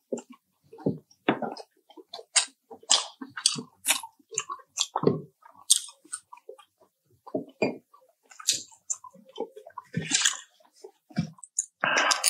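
Close-miked chewing and biting of fried chicken: irregular short wet smacks and crunches in quick succession, with a louder, longer noise near the end.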